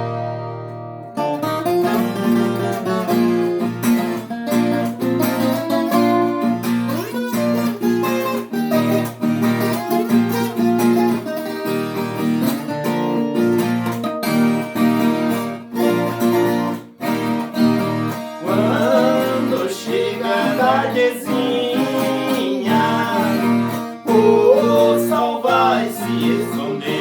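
Music: an instrumental introduction played on viola caipira, the Brazilian ten-string country guitar, with plucked and strummed notes over a steady low accompaniment.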